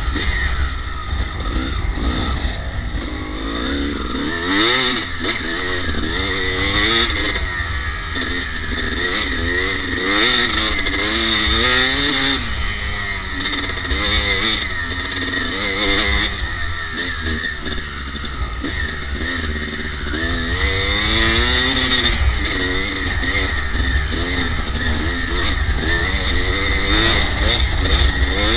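Kawasaki KX250 dirt bike engine revving up and down as it is ridden uphill over rough grass, its pitch rising and falling with the throttle, with wind buffeting the microphone.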